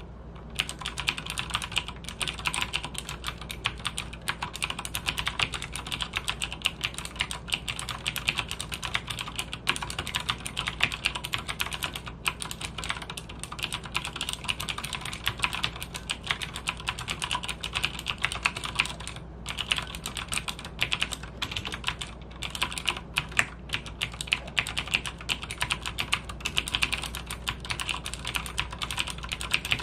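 Logitech G610 mechanical keyboard with Cherry MX Blue switches being typed on at an ordinary pace: a steady run of sharp, clicky keystrokes, with a couple of brief pauses about two-thirds of the way in.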